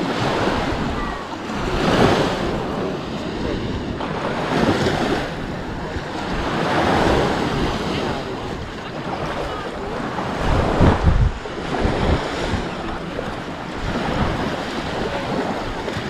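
Sea waves washing onto a sandy beach, the surf swelling every two to three seconds, with wind buffeting the microphone, strongest about eleven seconds in.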